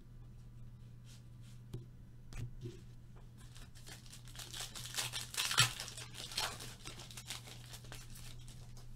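Trading card pack wrapper torn open and crinkled by hand. A few light clicks come first, then a longer spell of tearing and rustling in the middle, under a steady low hum.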